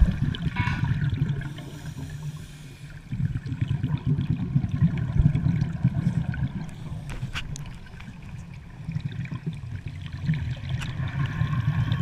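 Muffled underwater bubbling and gurgling from scuba divers' exhaled regulator bubbles, heard through an underwater camera housing. A low rumble swells and fades every few seconds, with a few faint clicks.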